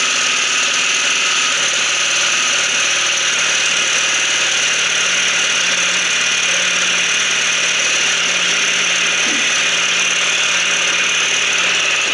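Baja Doodlebug 97cc mini bike engine running steadily at idle. The idle is a little high after the carburetor adjustment.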